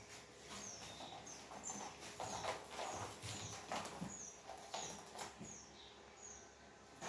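Small birds chirping repeatedly in short, high, falling notes, with a few brief rustling knocks mixed in.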